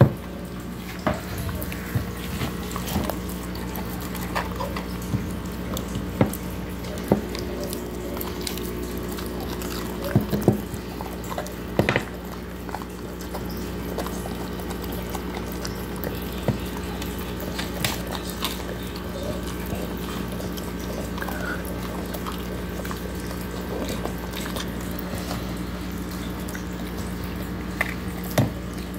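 A dog eating pizza off a plate: irregular chewing, licking and smacking clicks, a few louder ones around the middle, over a steady low hum.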